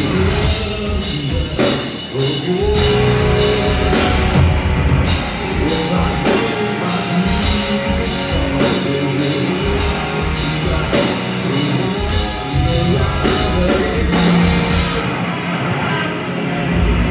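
Heavy rock band playing live on stage: distorted electric guitars and bass over a full drum kit.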